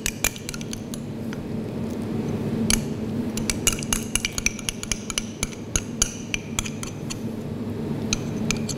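Light scattered clinks and taps of a small glass jar and a metal spoon against glass as thick vanilla paste is poured and scraped out over a glass bowl, over a steady low hum.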